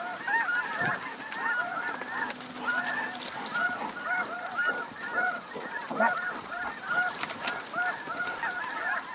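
A large flock of geese honking, many short calls overlapping in a continuous chorus.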